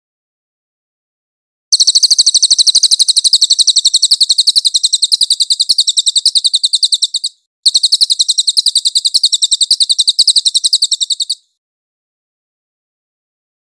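Cililin (crested jay) calling: a rapid, even rattle of clipped high notes in two long runs of about five and four seconds, split by a brief pause.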